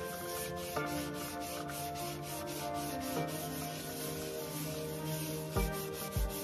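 Sponge scrubbing a white sink basin with cleanser in quick repeated strokes, over background music whose low beat comes in near the end.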